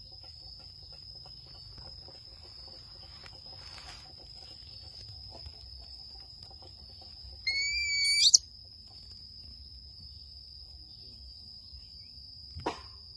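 A thin, steady high-pitched whine runs throughout. About seven and a half seconds in, one loud, high whistling call lasts about a second and rises sharply in pitch at its end. A short click comes near the end.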